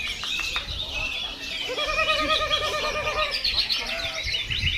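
Several songbirds chirping and singing at once, with a wavering, warbling trill from about two seconds in that lasts over a second.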